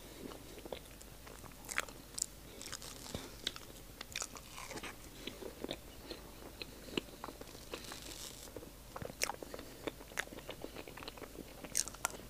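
Close-miked eating of a soft dark chocolate mille-crêpe cake: quiet chewing and lip smacks with scattered short clicks, spread over the whole stretch.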